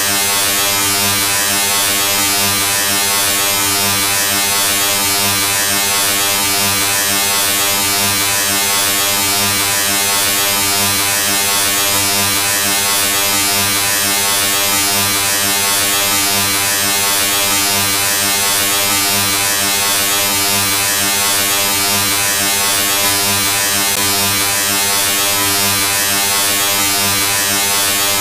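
Steady, unbroken electric buzz: a low hum with many overtones over a loud hiss, holding the same level and pitch throughout.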